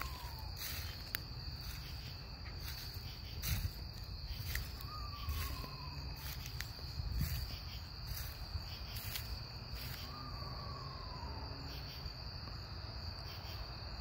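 An unidentified nocturnal bird call: a single whistled note that slides down in pitch, lasting about a second, repeated roughly every five seconds. A steady high insect trill runs underneath, with a few faint clicks.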